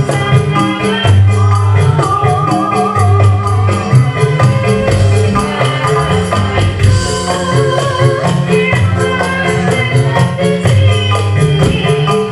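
Live Javanese band music in a fast srebegan passage: a quick, even percussion beat with tambourine-like jingles, repeating bass notes and a wavering melody line.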